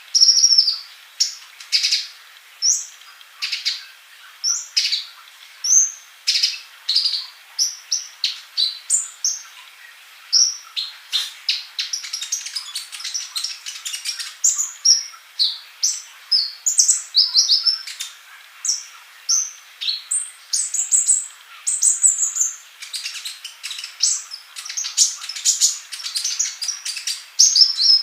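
Male olive-backed sunbird singing without a break: a fast run of short, high, thin chirps, many of them falling in pitch, several a second.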